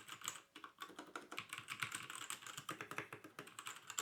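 Keys of a Havit 60% mechanical keyboard with brown switches being pressed in a fast, continuous run of clicks and clacks, several strokes a second.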